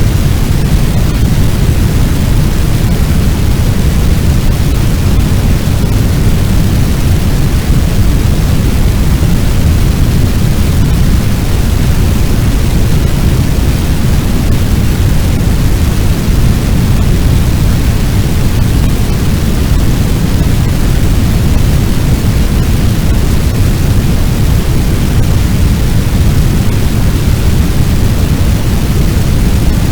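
Fire sound effect: a steady, loud, low rumbling roar like a large blaze or fire wind, with no separate crackles or pops.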